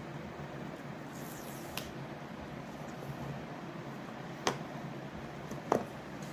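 Three short sharp clicks from hands handling an iPhone box and its packaging, the last two louder, over a steady background hiss.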